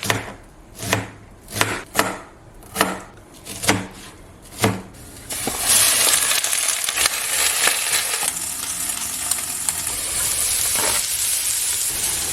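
About seven kitchen knocks, roughly one a second, then food sizzling steadily in a hot frying pan from about halfway through.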